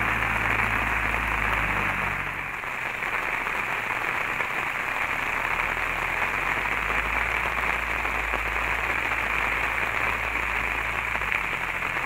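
Heavy rain falling in a steady downpour, with a low hum underneath that fades about two seconds in and comes back later.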